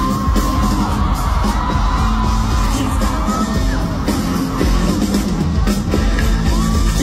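A K-pop song played loud at a live concert, with a steady beat and singing, and fans yelling and whooping over the music.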